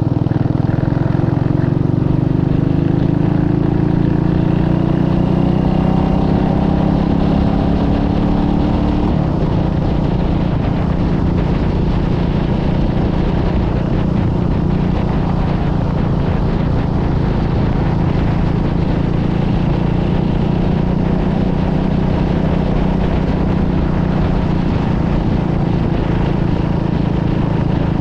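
Motorcycle engine accelerating, its note rising over the first several seconds, then cruising steadily under heavy wind rush on the microphone.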